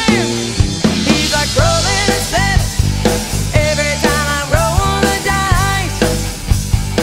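Rock band music: drum kit, bass and electric guitars playing together, with a lead line of short phrases whose notes bend and slide in pitch.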